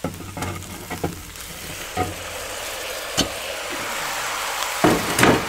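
Pork neck pieces sizzling in hot fat with onions in a Dutch oven as the browned meat goes back into the pot. The hiss grows slowly louder, with a few sharp knocks along the way and a louder clatter near the end.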